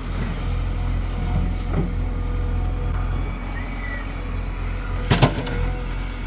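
Diesel engines of a backhoe loader and tractor at work, running steadily with a low rumble, with a sharp metallic clank about five seconds in.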